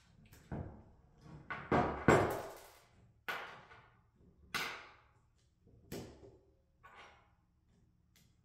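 Metal tools and small hardware clinking and knocking against a table and a hydraulic control valve's metal body as the valve is taken apart by hand: about seven separate knocks, the loudest about two seconds in.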